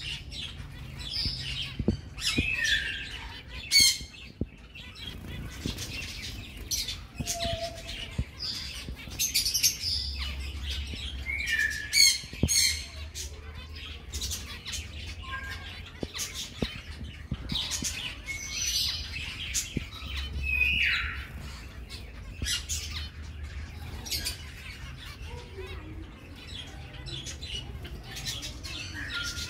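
A small flock of zebra finches calling: many short calls, one after another, with no steady rhythm.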